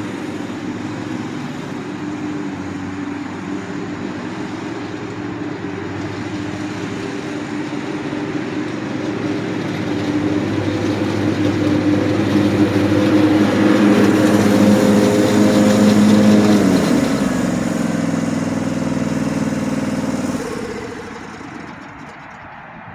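The 23 HP Kawasaki V-twin engine of an Ariens Ikon zero-turn riding mower running steadily. It grows louder partway through, drops in pitch about two thirds of the way in, and falls away to a much lower level near the end.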